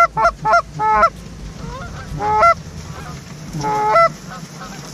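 Loud Canada goose honks and clucks: a quick run of about four at the start, then single honks about a second in and two and a half seconds in, and a longer drawn-out honk near four seconds. A steady low rumble runs under them.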